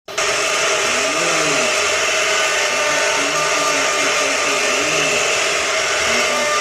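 An electric woodworking power tool's motor running steadily at a constant speed, with faint low notes rising and falling underneath.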